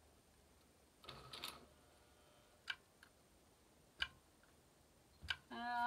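Faint sounds from a tiny antique Bell toy sewing machine as fabric is fed in and its foot control pressed: a short rustle with a brief faint hum about a second in, then three single clicks about a second and a half apart. The machine does not sew.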